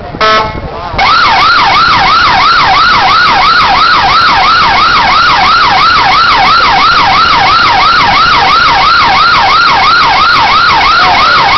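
Police car's electronic siren, loud: a brief steady horn-like blast, then from about a second in a fast yelp sweeping up and down about two and a half times a second, stopping abruptly at the very end.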